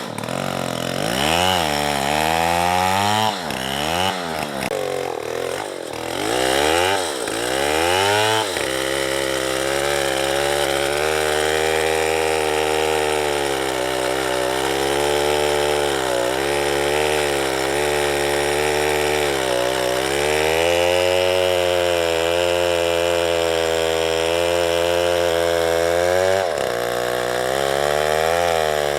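Small chainsaw engine revving up and down in quick swells for the first several seconds, then held at high speed and cutting into the tree, its pitch wavering slightly under the load. Near the end the engine briefly drops and picks up again.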